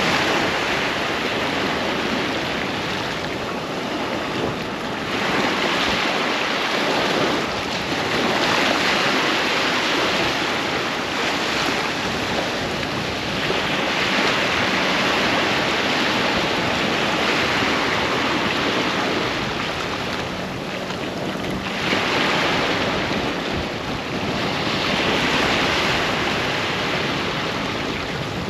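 Sea waves breaking on a sandy beach, a continuous wash of surf that swells and eases every few seconds as each wave comes in, with some wind noise on the microphone.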